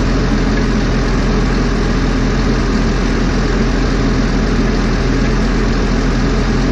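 An engine idling steadily, a constant low drone that does not change.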